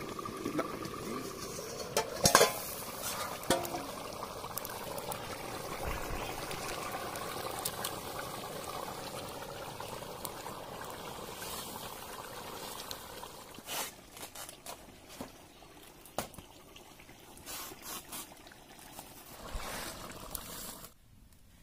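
Pork gravy boiling in a steel wok over a wood fire, with a loud metal clank about two seconds in as the steel cover comes off. In the second half come scattered sharp knocks and clicks as the wok is handled.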